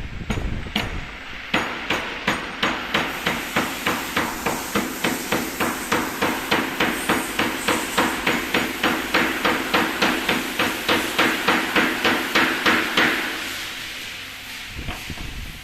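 ATC CNC router at work, giving a fast, regular knocking of about three knocks a second that stops about thirteen seconds in, leaving a fading hiss.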